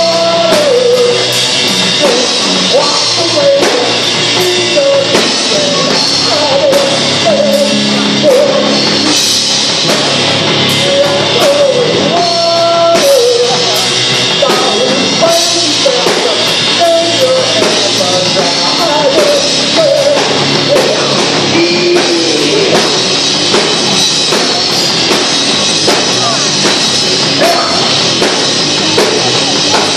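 Live rock band playing loud: electric guitars and a drum kit, with a man singing into a microphone over them.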